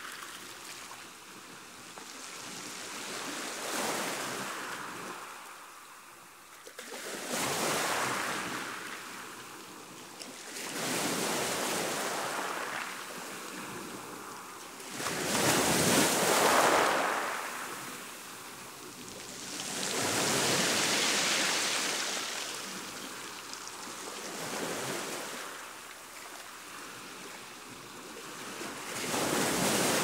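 Choppy sea washing: one wave after another swells up and falls away every few seconds, with the biggest surge about halfway through.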